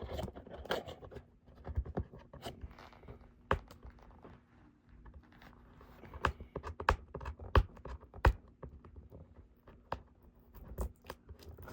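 A cardboard product box being opened by hand, without a knife: fingers scratching and scraping at the cardboard and tape, with irregular clicks and taps.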